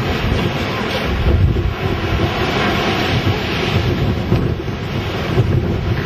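Storm-force wind buffeting the camera microphone in heavy, uneven gusts, a loud rumbling roar, with waves breaking on the shore mixed in beneath it.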